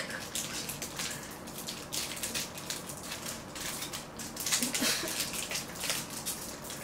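Plastic wrapper of a trading-card pack crinkling and crackling in irregular bursts as it is twisted and torn open by hand.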